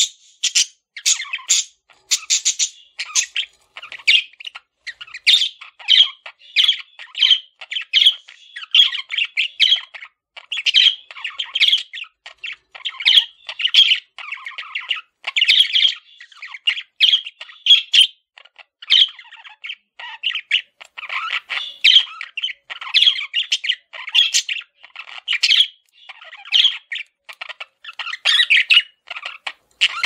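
Male budgerigars chirping and chattering in a quick, unbroken stream of short notes and squawks.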